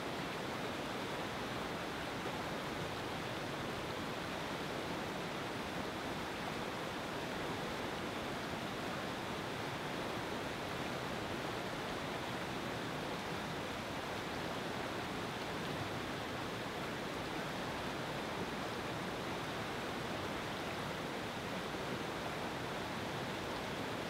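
Whitewater rapids of the Rideau River at Hogs Back Falls rushing over rocks: a steady, unbroken roar of fast-flowing water with no change in level.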